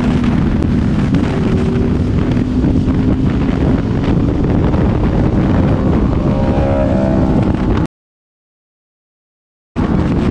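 Honda sport motorcycle engine running at road speed under heavy wind noise on the microphone, with a rising whine about six seconds in. The sound cuts out completely for about two seconds near the end, then returns.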